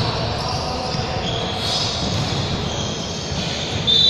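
Basketball game sounds in a gym hall: the ball bouncing and short high squeaks, louder near the end, over general court noise.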